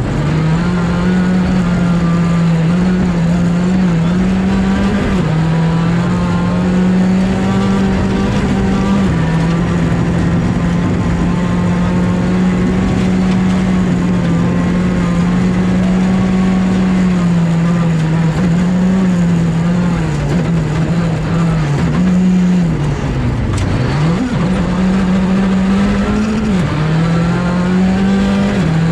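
Skoda Fabia R5 rally car's turbocharged four-cylinder engine at high revs, heard from inside the car at speed. The pitch holds high and fairly level with small steps at gear changes, and drops sharply then climbs again at about 23 seconds, as the driver lifts off and accelerates back up.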